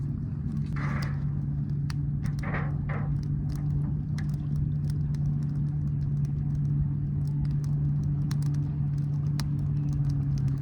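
A steady low engine hum, like a motor vehicle idling, that dips in pitch right at the end, with scattered sharp clicks and crackles over it.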